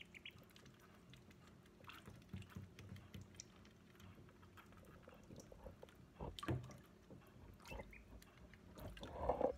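Khaki Campbell ducklings dabbling in shallow water in a stainless steel sink: soft wet pecking, dripping and splashing, with a few faint peeps. A couple of louder dull knocks come about six seconds in and again near the end.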